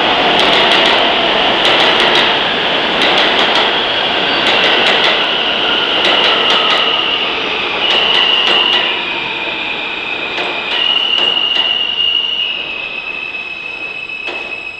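R160 subway train pulling into the station and slowing: a loud rumble and rattle of wheels on rail, with rapid clacks over the rail joints that thin out as it slows. From about four seconds in, a high whine holds one pitch and then jumps to another several times, while the whole sound slowly gets quieter.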